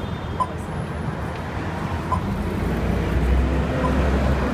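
City street traffic noise, with a motor vehicle's engine rumble growing louder from about two seconds in. A short high beep repeats about every second and a half throughout.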